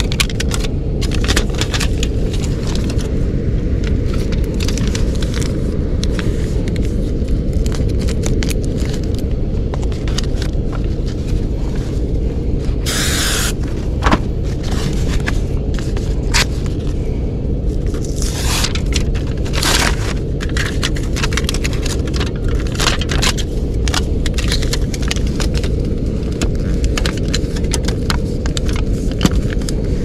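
Foil tape being handled: its backing peeled off and the foil crinkled and pressed down over a plenum seam, making a run of crackles and clicks with a few longer ripping peels, the biggest about 13 seconds in. Under it a steady low rumble.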